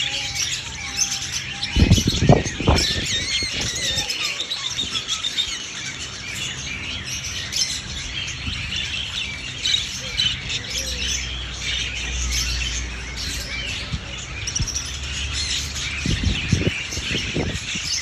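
A flock of budgerigars chirping and chattering without pause. A few low thumps come about two seconds in and again near the end.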